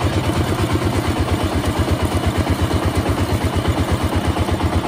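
Engine-driven sugarcane juice crushing machine running steadily, with an even rapid pulse of about eight to nine beats a second.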